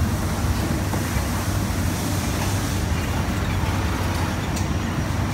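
A steady low hum with a constant rumble of background noise, even throughout and without distinct knocks or clicks.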